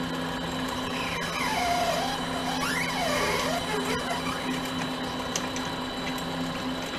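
Mini lathe running steadily with a constant motor hum while drilling brass hex stock. From about one to four seconds in, a wavering high tone rises and falls twice over it.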